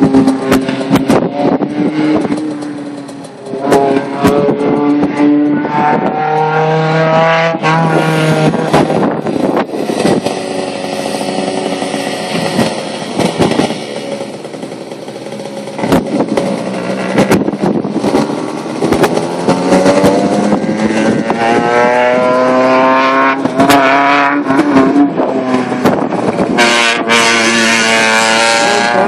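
Station wagon race car's engine revving hard during an autocross run, its pitch climbing repeatedly and dropping back as it works through the course. Frequent sharp crackles run throughout.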